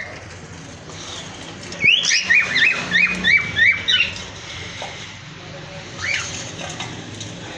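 Cockatiels calling: a quick run of about seven rising, whistled calls about two seconds in, then a single call near six seconds.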